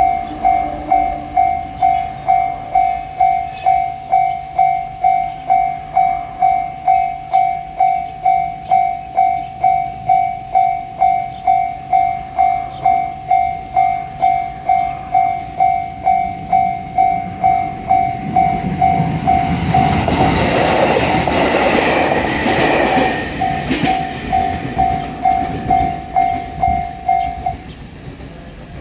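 Japanese railway level-crossing warning bell clanging in a steady, even rhythm of about one and a half strokes a second. A train passes over the crossing about two-thirds of the way through, and its rushing wheel noise briefly buries the bell. The bell rings on for a few more seconds and stops shortly before the end.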